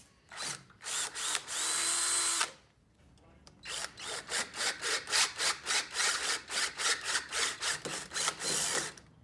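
Handheld power drill boring out a pre-drilled quarter-inch hole in a steel T-plate to 5/16 inch. A few short trigger pulls and a run of about a second with a steady motor whine, a pause, then a long stretch of rapid stuttering at about four pulses a second as the bit works through the metal.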